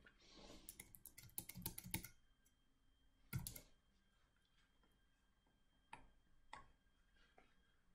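Quiet clicks of a computer mouse and keyboard as answers are picked from drop-down boxes: a quick run of clicks in the first two seconds, a louder knock at about three and a half seconds, then two single clicks near the end.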